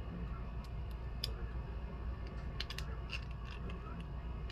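A few small, sharp clicks and taps of small metal tools and a charm being handled on a jeweler's bench, over a low steady hum.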